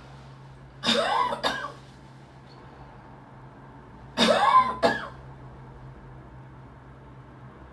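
A person coughing in two short fits about three seconds apart, each a cough followed quickly by a shorter second cough.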